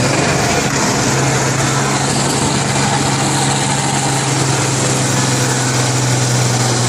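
Combine harvester engines running steadily at a combine demolition derby: a constant low drone under a broad rush of engine noise.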